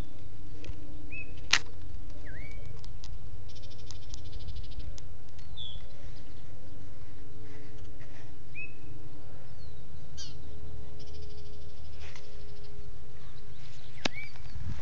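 Short bird chirps every couple of seconds over a steady low rumble, with a few sharp clicks, the loudest about a second and a half in.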